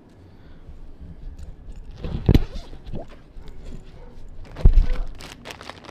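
Handling noise from a camera being moved about and held: low rubbing and rustling with scattered clicks, and two loud thumps about two and a half seconds apart.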